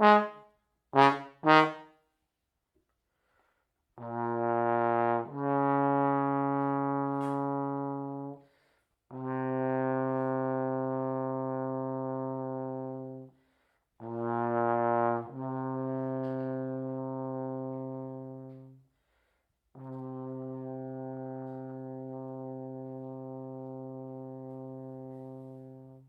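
Unaccompanied trombone playing a slow phrase in its low range: a couple of short notes at the start, then four long held notes with short breaths between them, some sliding up a step partway through. The last note is softer and fades out at the end.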